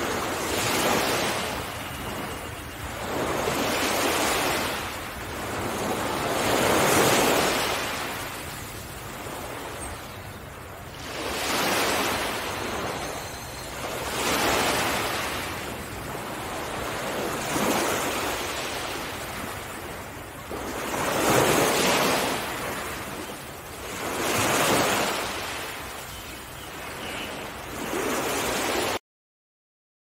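Sea waves washing onto the shore, each one swelling and fading every few seconds; the sound cuts off suddenly near the end.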